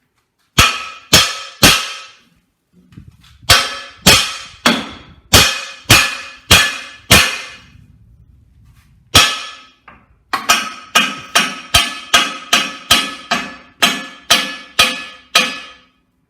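Hammer blows on steel, each ringing: three strikes about half a second apart, a run of about seven, a single blow, then a faster run of about fourteen. A rust-seized steel part of a Massey Ferguson 135 tractor's cab is being knocked loose.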